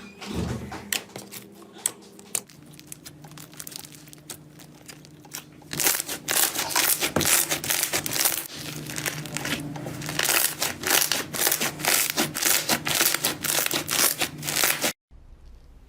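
Slime being squeezed and pressed, giving a dense run of crackling and popping clicks. It is sparser at first, becomes much louder and busier about six seconds in, and cuts off abruptly near the end.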